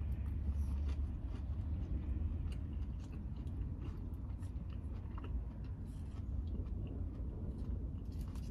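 A person chewing and biting into fried cheese sticks, with many small, faint mouth clicks, over a steady low hum inside a car cabin.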